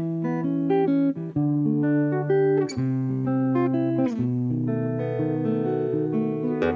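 Steel-string acoustic guitar playing an instrumental passage solo: picked notes ringing over changing bass notes, with a few sharper strummed chords.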